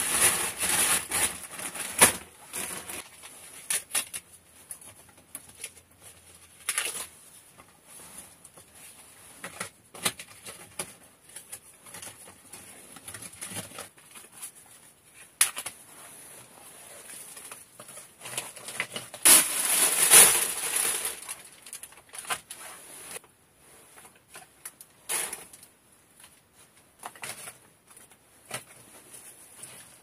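Kindling and dry wood chips being handled and packed into a wood stove's firebox through the round opening in its cast-iron top plate: irregular rustling with light wooden clatters and knocks. The loudest rustling comes near the start and again about two-thirds of the way through.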